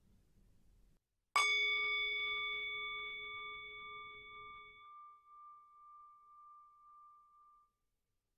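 A bell struck once about a second in, ringing with several tones at once and slowly fading away over about six seconds, marking the start of a moment of silent meditation.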